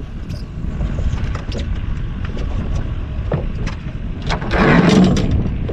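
Wind buffeting the microphone over water lapping at a small boat's hull, with scattered light clicks and a louder rushing gust about four and a half seconds in.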